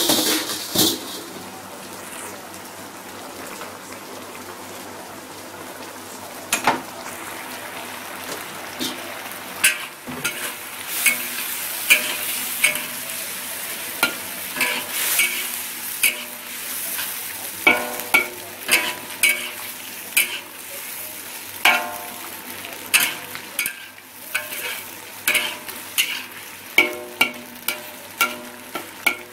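Chicken wing stew with carrots and potatoes sizzling steadily in a wok. A metal spatula stirs it, clacking and scraping against the pan. The strokes are sparse at first and come thick and irregular from about ten seconds in.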